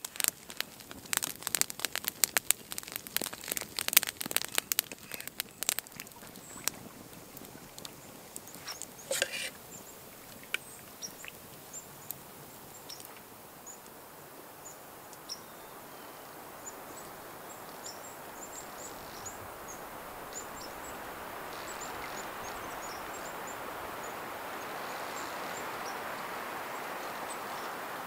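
A freshly lit campfire crackles with dense, sharp pops for the first several seconds, then only a few scattered pops. After that a steady hiss slowly grows louder, with faint high chirps scattered over it.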